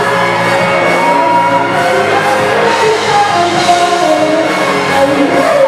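Live band of electric guitars, drums and keyboard playing a song, with a singing voice carrying the melody over it.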